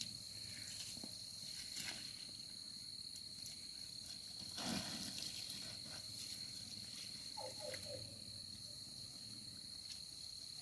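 Insects, cricket-like, giving a steady high-pitched trill, faint and unbroken. A short rustle about halfway through is the loudest moment, and a few faint short chirps follow a few seconds later.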